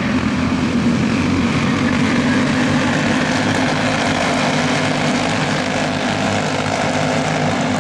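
Several racing kart engines running at speed around the track, making a steady buzz that holds without a break.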